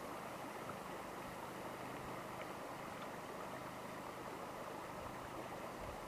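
Steady, even rushing background noise with a faint low hum underneath, unchanging throughout and with no distinct calls or splashes.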